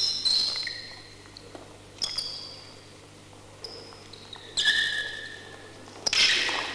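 Canne de combat bout on a sports-hall floor: a few sharp knocks, each followed by a brief high squeak, and a louder burst of noise near the end.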